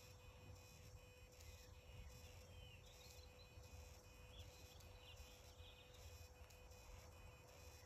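Near silence: faint outdoor ambience with a low rumble and scattered distant bird chirps.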